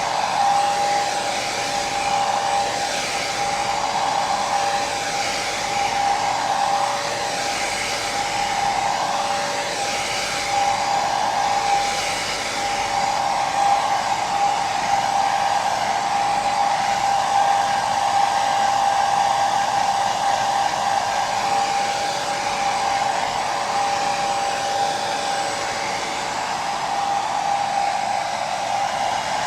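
Hair dryer running steadily: a continuous rush of blown air with a motor whine over it.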